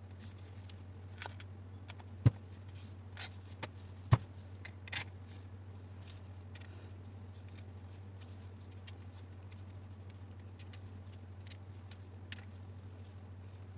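Light clicks and taps of plastic angle-grinder housing parts being handled and fitted together, with two sharp knocks about two and four seconds in, over a steady low hum.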